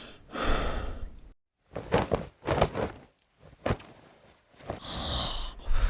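Anime sound effects with no music: a breathy, sigh-like exhale, then a few sharp knocks and a single click, then a short hiss near the end.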